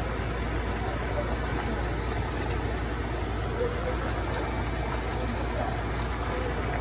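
Fish and tofu soup simmering in a pan on the stove, bubbling with a steady hiss over a low, even hum.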